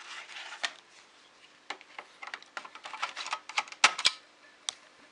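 Irregular sharp plastic clicks and clatter of handling an Amiga 500 and its floppy disks, thickest in the middle, with a faint steady hum beneath.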